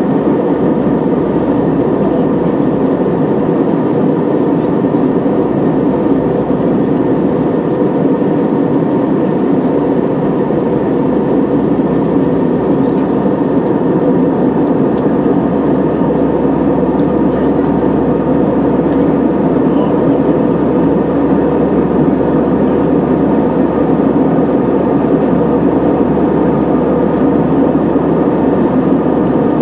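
Steady drone of an Airbus A320-214 in cruise, heard inside the passenger cabin: the sound of its CFM56-5B turbofan engines and the airflow blends into one even, unbroken noise.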